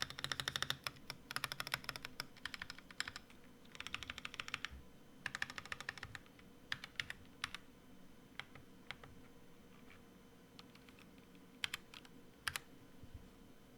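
Portico75 mechanical keyboard with unlubed Boba U4T tactile switches and PBT keycaps being typed on: quick runs of keystrokes in the first five seconds or so, then slower, scattered single key presses.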